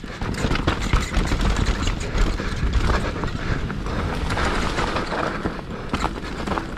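Scott Gambler downhill mountain bike rolling fast over a rocky dirt trail: tyres crunching over stones and the bike rattling and clattering with continual small knocks over the bumps. A steady low rumble of wind on the action camera's microphone runs underneath.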